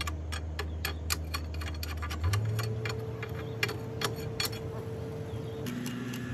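Sharp, irregular metallic ticks and taps, a few a second, as a hand tool is knocked and scraped against welded steel, over a steady low hum.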